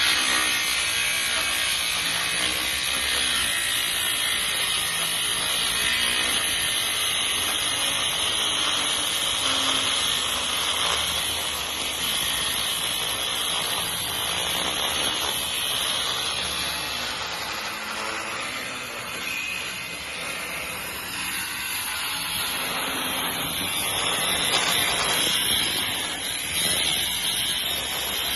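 A power tool cutting into steel, running steadily with a high, hissing grind, easing off for a few seconds past the middle and then bearing down again.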